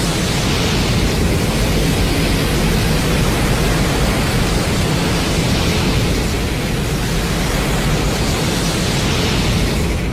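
Godzilla film sound effect: a loud, steady rushing noise with a deep rumble underneath and no clear pitch, fading out near the end.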